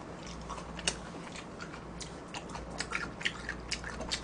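A person chewing a mouthful of mulhoe, cold raw-fish soup, close to the microphone: a run of short, irregular mouth clicks.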